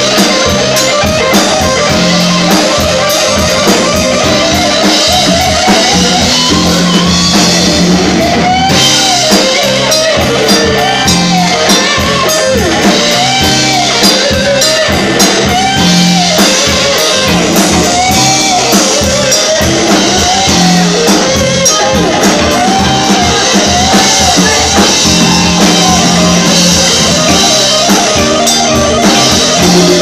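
A band playing live: a drum kit keeps a busy steady beat under held bass notes and a melody line that repeatedly bends up and falls back.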